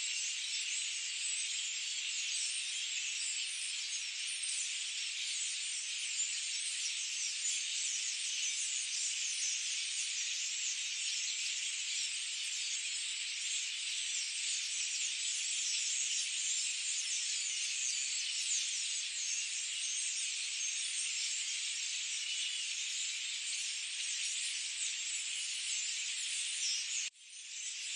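Forest ambience: a dense, steady, high-pitched chorus of many small calls blending into a continuous hiss. About a second before the end it cuts out suddenly and fades back in, an edit in the recording.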